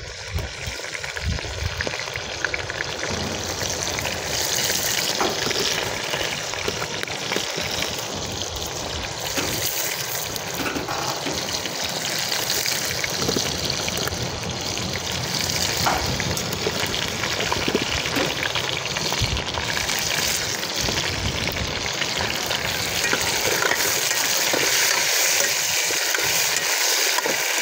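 Tomato pieces sizzling as they fry in hot oil in a metal wok, growing a little louder near the end. A ladle stirs them and now and then taps and scrapes against the pan.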